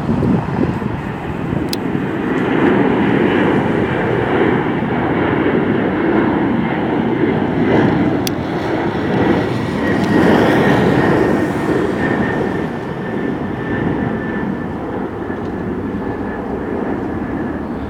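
Jet airliner passing close by: a loud, steady engine rush with a thin high whine that slowly falls in pitch as it goes away.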